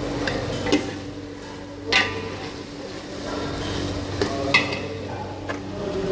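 A metal spoon stirring and knocking against an aluminium cooking pot of chicken frying in oil, with several sharp clinks, the loudest about two seconds in, over a steady low hum.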